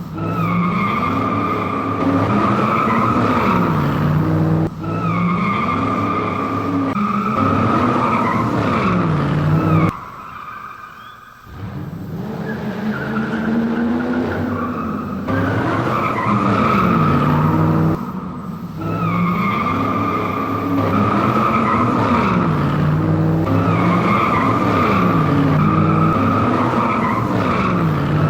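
Added drift-car sound effects: a full-size car engine revving up and down over and over with steady screeching tyres, dropping away briefly about ten seconds in. The same sections seem to repeat in a loop.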